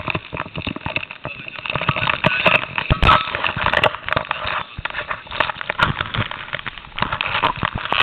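Handling noise from a small onboard camera being taken off and moved by hand: irregular rubbing and scraping on its microphone, with many sharp clicks and knocks.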